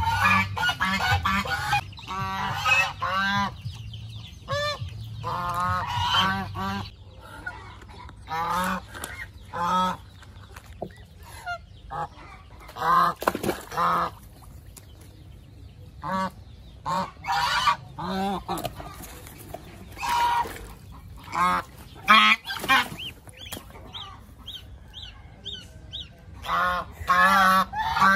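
Domestic geese honking again and again in short calls with pauses between. Near the end comes a run of thin, evenly spaced high peeps, like goslings peeping.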